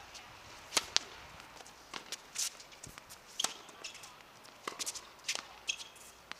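Tennis racket strokes and ball bounces on an outdoor hard court during a point: two loud cracks close together just under a second in as the serve is struck, then a string of lighter pops and knocks as the rally goes on.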